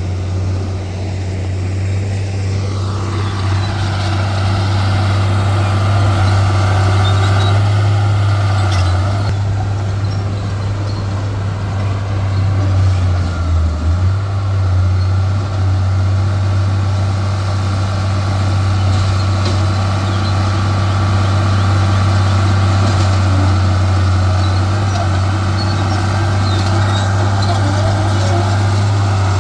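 Heavy diesel engine of earthmoving machinery running steadily, a deep continuous drone, with a higher mechanical noise joining about three seconds in.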